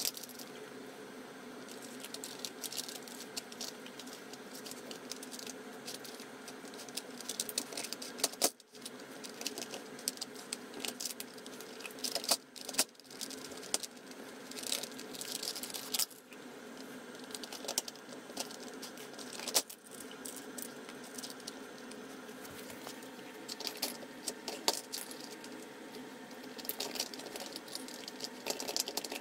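Plastic dog treat puzzle (Nina Ottosson Dog Brick) being worked by a dog's nose and mouth: hard plastic bricks, bone lids and flaps clattering and knocking, with dry kibble rattling. A quick, irregular run of clicks and knocks over a steady hum.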